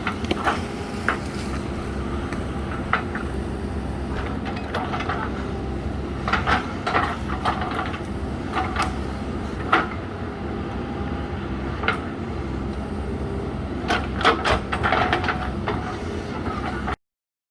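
JCB 3DX Super backhoe loader's diesel engine running steadily, with a scatter of sharp knocks and clanks from the machine at work; the sound cuts off suddenly near the end.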